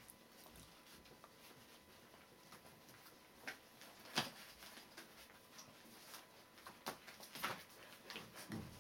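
Faint, scattered soft ticks and scuffs with a few sharper clicks, from three-week-old Border Collie puppies moving about on a shaggy rug.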